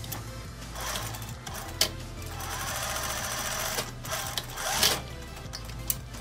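Singer sewing machine stitching a short seam through two layers of fabric in short runs, the longest lasting about a second and a half in the middle, with a few sharp clicks between runs.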